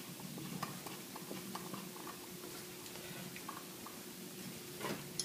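Faint, scattered small metal clicks and ticks of a hex key turning the locking set screws in a Max-Prop Easy propeller hub, over a faint steady hum.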